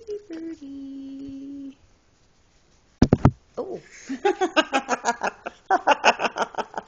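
A short hummed note held for about a second, then a sharp thump, the loudest sound, about three seconds in, followed by a run of quick, rapid laughing.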